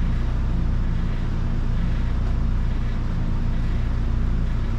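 Steady low machine hum with a faint hiss above it.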